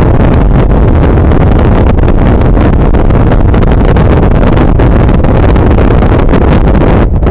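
ALS intercity bus's diesel engine running loud through its aftermarket Bogor exhaust, a steady heavy rumble that dips briefly near the end.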